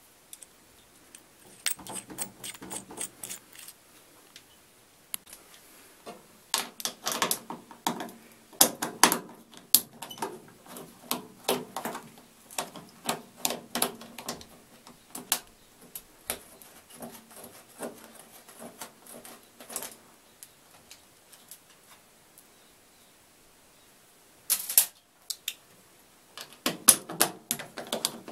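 Rapid metallic clicking and scraping of a screwdriver-type tool unscrewing the transport-lock bolts on the rear bracket of a Wiatka 14 washing machine. The clicks come in irregular bursts, with two short pauses.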